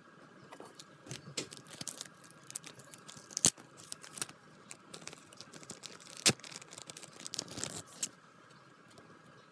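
Packaging being torn open and crinkled by hand, a busy run of crackles and rustles with two sharp snaps about three seconds apart.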